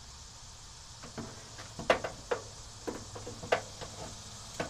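A caged work light being handled into position, its metal cage clinking and knocking against metal in a handful of sharp knocks over about three seconds, over a steady low hum.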